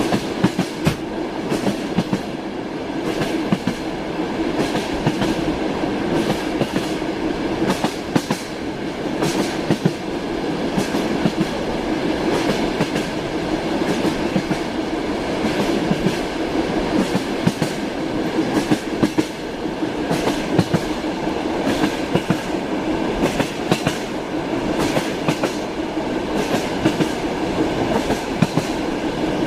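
Train running steadily along the track, wheels clacking over the rail joints with a continuous rumble.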